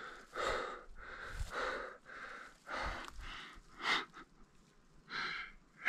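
A man breathing hard and audibly through his mouth, out of breath, with a breath coming about every second.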